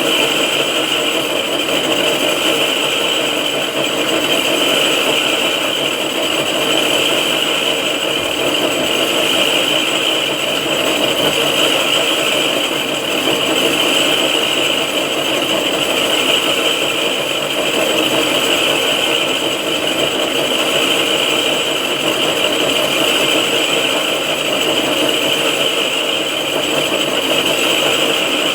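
6R12 vertical knee-type milling machine running steadily while milling a cylinder head, with the spindle and gearbox whine and the cutter noise holding even.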